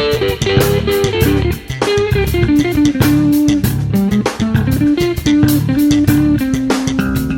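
Background music: an electric guitar melody over bass guitar and a drum kit beat.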